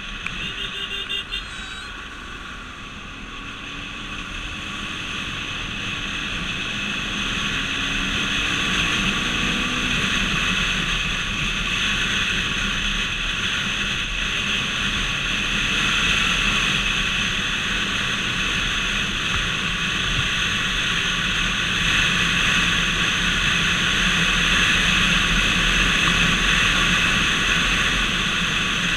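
Car driving at highway speed, a steady mix of engine and road noise that grows louder over the first ten seconds or so as a faint whine rises in pitch with the car gathering speed, then holds steady at cruising speed. A few brief clicks sound near the start.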